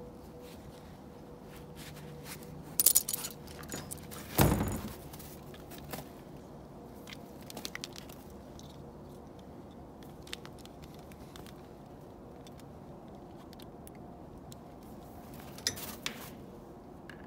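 Handling noise from a metal pliers-type tubing tool and plastic maple sap tubing: scattered light clicks and rattles, with a brief clatter about three seconds in, a louder knock-like rustle about a second and a half later, and another short clatter near the end.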